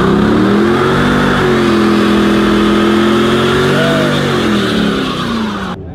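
Car engine revving hard and held at high revs, its pitch dipping and climbing again a couple of times, over a loud steady hiss, as in a burnout. It cuts off abruptly near the end.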